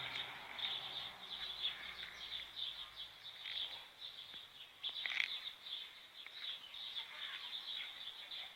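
Small birds chirping repeatedly and rapidly. A low machine hum fades away in the first few seconds.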